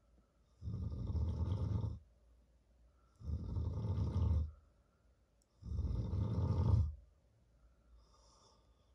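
A person snoring: three long snores about two and a half seconds apart, then the snoring stops near the end.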